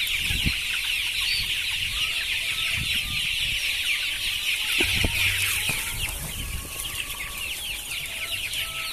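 A large flock of young KUB village chickens cheeping together without a break, many short falling calls overlapping, as they crowd around scattered ground corn. A couple of low knocks come about half a second and five seconds in.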